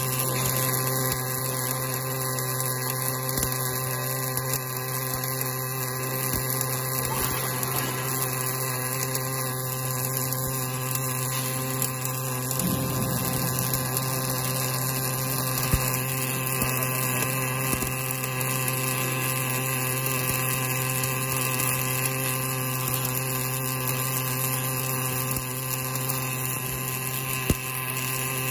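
Automatic wire-fed arc welding machine laying a weld in the deep groove between a hydraulic cylinder rod and its rod end: the arc runs without a break, a steady, even hum over a hiss. A couple of faint clicks come about halfway through and near the end.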